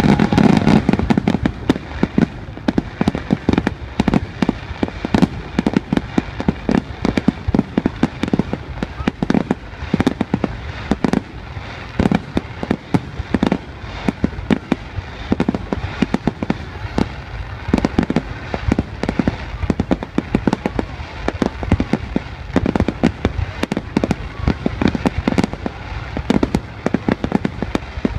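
Fireworks display: aerial shells bursting overhead in a rapid, continuous barrage of sharp bangs, several a second, with the heaviest, deepest bursts at the very start.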